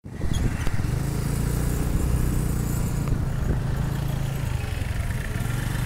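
A small engine running steadily at an even, low pitch.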